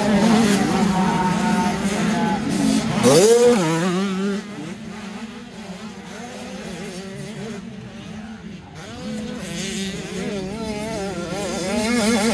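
85cc two-stroke motocross bikes running on a dirt track, their engines revving up and down through the gears. About three seconds in, one engine revs sharply upward; the engines drop quieter for a few seconds, then grow louder again near the end as bikes come closer.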